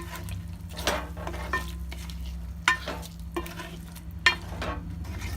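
A spatula stirs chicken and fresh cream in a karahi, knocking and scraping against the pan about once a second, over a gentle sizzle on low heat. A steady low hum runs underneath.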